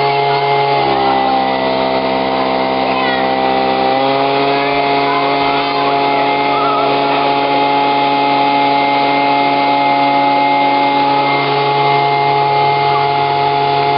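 A small motor, such as a household appliance or power tool, running steadily with a whine. Its pitch drops about a second in and rises back about four seconds in, as if switched between speeds.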